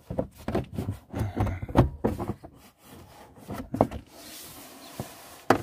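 A plastic wheel-arch cover on a Volkswagen Polo being wiggled and worked loose: irregular scraping, knocking and clattering of plastic against the body. About four seconds in comes a longer rubbing rustle, and a sharp knock near the end.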